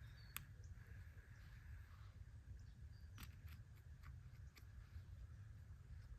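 Near silence: a faint low rumble with a few soft clicks scattered through it.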